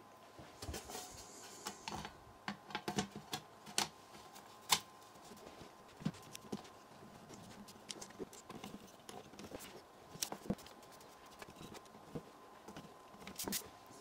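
Aluminium bottom case of a 13-inch MacBook Pro being fitted back on by hand: faint, scattered small clicks and taps of metal as it is lined up and seated, with one sharper tap a little before five seconds in.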